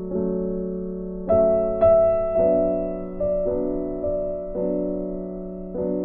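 Background piano music: soft sustained chords, with new notes struck every second or so and fading between them.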